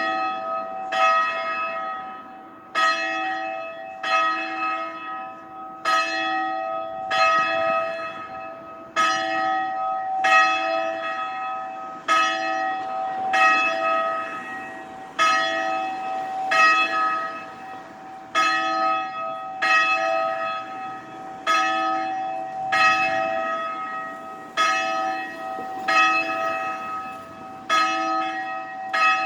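Loud church bell ringing, struck about every second and a half, each stroke ringing on and overlapping the next.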